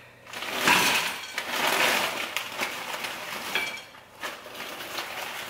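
Cookware clattering on a stove: a pan and utensils being handled, with a noisy hiss through the first few seconds and lighter clinks after.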